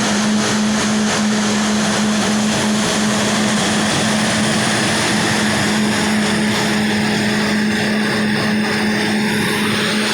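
Large blower fan running steadily: a loud rushing noise over a constant low hum.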